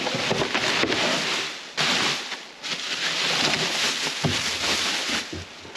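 Loud crinkling and rustling of plastic wrapping being handled and pulled off a refinished wheel, in three long stretches with short breaks about two and two and a half seconds in.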